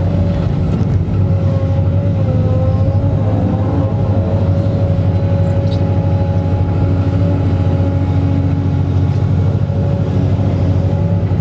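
Excavator engine running steadily, with a steady whine over its low hum.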